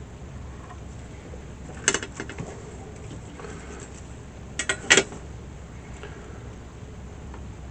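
Light, sharp clicks and taps of small tools being handled at a soldering bench: a short cluster about two seconds in and three quick clicks about five seconds in, over a faint steady low hum.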